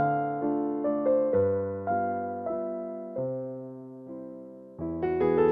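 Background music: a gentle piano piece of struck notes and chords that fade away, thinning out about three seconds in before fuller chords come back near the end.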